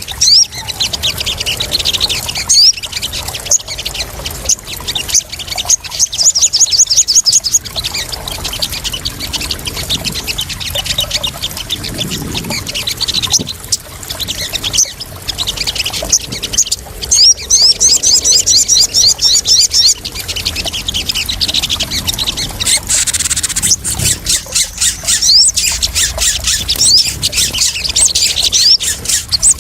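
Crimson sunbirds (sogon) calling in runs of rapid, high chirping trills over the sound of splashing water.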